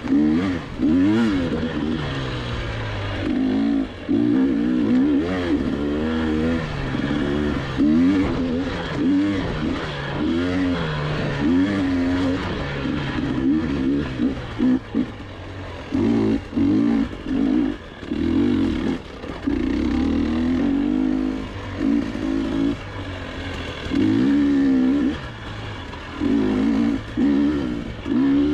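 GasGas EC300 two-stroke dirt bike engine being ridden hard, revving up and down continually with the throttle, its pitch rising and falling and the sound dropping briefly each time the throttle is rolled off.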